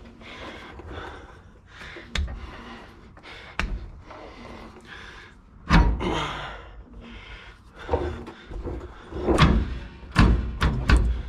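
About half a dozen separate thunks and knocks, the loudest about six seconds in, as parts and tools are handled on a Ford 9-inch rear axle while the differential third member is being fitted.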